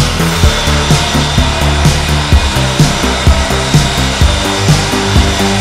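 Background music with a steady beat and a stepped bass line.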